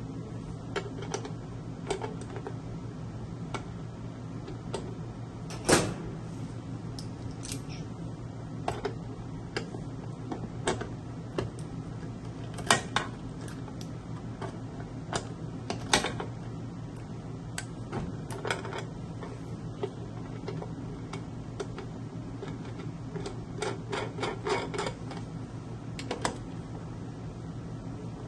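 Irregular metallic clicks and taps from a long socket driver turning the centre nut on the stainless-steel lid of a Belgian waffle maker, over a steady low hum. A few louder knocks stand out, and a quick run of clicks comes near the end.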